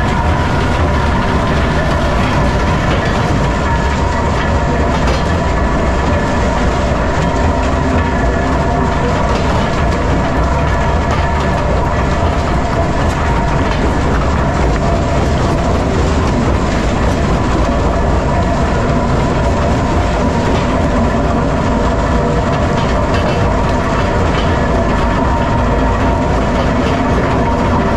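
Metso 130 jaw crusher and its vibrating grizzly feeder running, crushing blasted limestone. A steady, heavy rumble with rocks knocking and clattering through it and a constant hum underneath.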